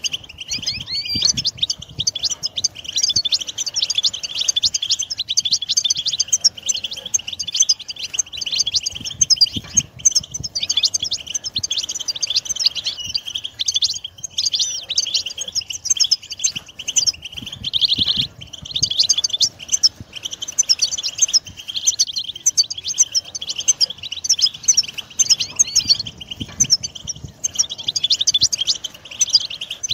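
European goldfinch song: a continuous, fast, liquid twittering of rapid chirps and trills, high-pitched and dense without a break.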